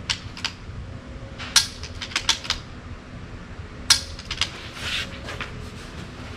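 Sharp metallic clicks and clacks of a rimfire rifle and its gear being handled: two light clicks at the start, then two clusters of louder clacks, about a second and a half and about four seconds in.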